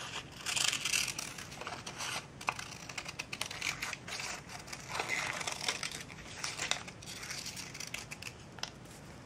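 Scissors snipping through paper in many short, irregular cuts, with the paper rustling as it is turned.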